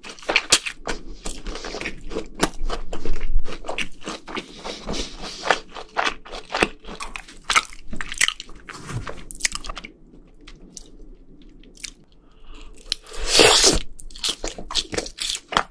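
Close-miked chewing and crunching of crispy fried food, many crisp crunches in quick succession. It goes quieter for a couple of seconds, then a loud crunching bite comes about 13 seconds in.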